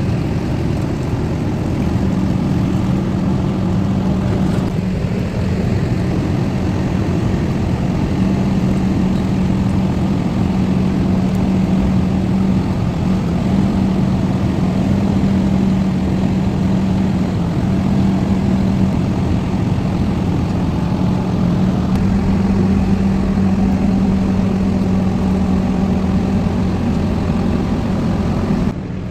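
Heavy diesel engine of the moving equipment running steadily, with a constant low hum over the engine noise.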